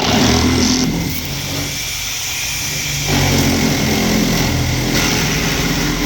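Milwaukee Sawzall reciprocating saw running at full speed, cutting through a car's window glass. It starts abruptly and grows heavier about three seconds in.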